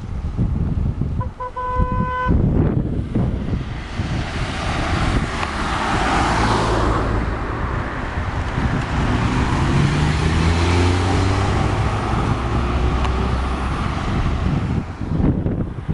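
A car horn toots briefly about a second in. Then a car engine runs slowly past, its pitch rising slightly, over a steady rumble of wind on the microphone.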